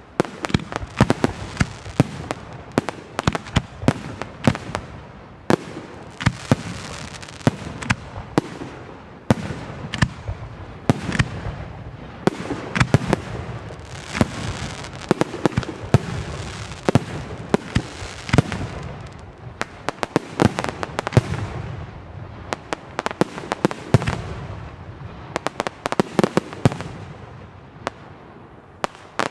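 Aerial firework shells bursting in quick succession: a dense run of sharp bangs and crackles with a rushing hiss between them. The barrage thins out over the last couple of seconds.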